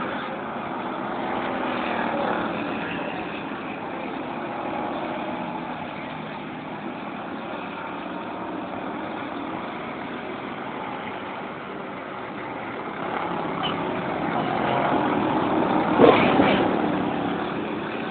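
Dirt-track race car engines running laps, the noise swelling as cars come past about two seconds in, then building again to a loud peak about sixteen seconds in before easing off.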